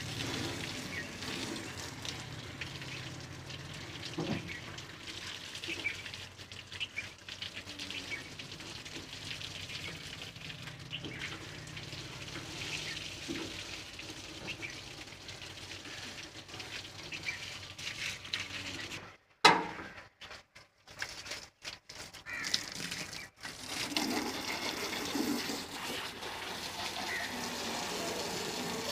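Water from a hand-held garden hose hissing and spattering steadily onto a tractor's engine and metal bodywork. About two-thirds of the way through there is one sharp, loud bump, and the sound then drops out in a few short gaps.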